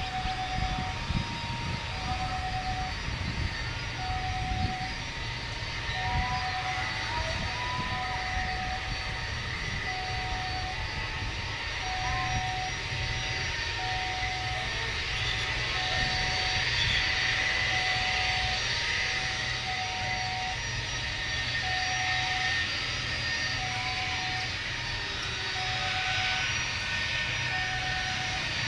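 BAe 146-type four-engine jet's turbofans running at low taxi power as it rolls along the runway: a steady rumble under a high whine that swells in the middle. A faint beep repeats about once every second and a bit.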